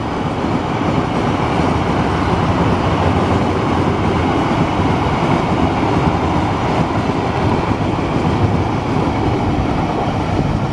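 Pertamina railway tank wagons of a freight train rolling past close by: a loud, steady noise of steel wheels running on the rails.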